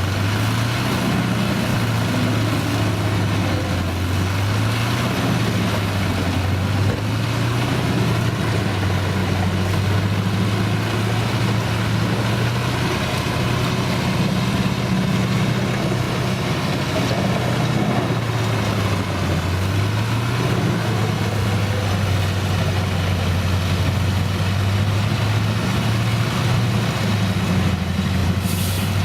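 Large diesel engine of heavy farm machinery running steadily, its low drone drifting slightly up and down in pitch.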